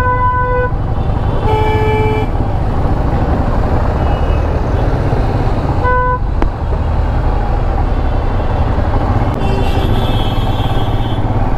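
Royal Enfield Himalayan's single-cylinder engine running at low speed under a steady low rumble, while vehicle horns honk four times: one at the start, another about two seconds in, a brief toot about six seconds in, and a fainter, longer horn near the end.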